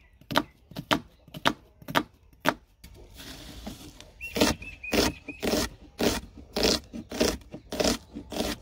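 Knife chopping onion finely on a cutting board: a few spaced cuts at first, a brief soft hiss about three seconds in, then steady chopping at about three strokes a second.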